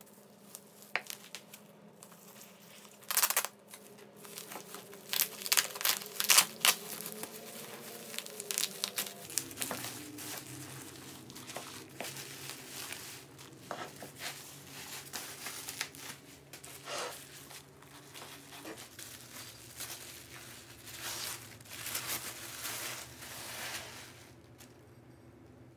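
Plastic bubble wrap and paper packing crinkling, crackling and tearing in uneven bouts as wrapped ceramic dishes are unwrapped by hand.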